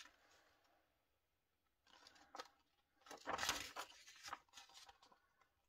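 Paper instruction sheet rustling as it is handled and turned over, with a louder crinkle of paper about three seconds in.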